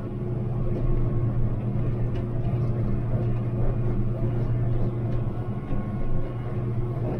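Engine of the farm spraying rig running steadily, a constant low drone with no change in pitch.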